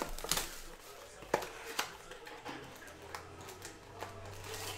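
Small cardboard trading-card box being torn open by hand: irregular sharp rips and crackles of thin paperboard, the loudest about a second and a half in.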